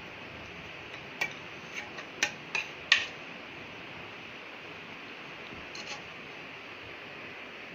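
A steel spoon clinking against a plate: about six light clicks between one and three seconds in, and one more near six seconds, over a steady background hiss.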